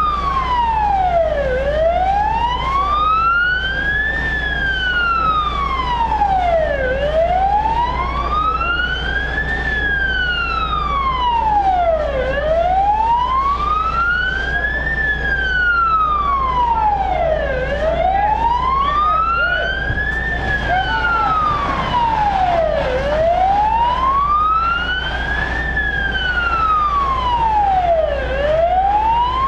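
Emergency vehicle siren in a slow wail, its pitch rising and falling about once every five seconds without a break, over a steady low hum.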